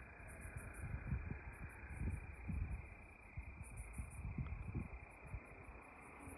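Crickets chirping faintly in high, rapid pulses that come in clusters every second or two, over a low, uneven rumble.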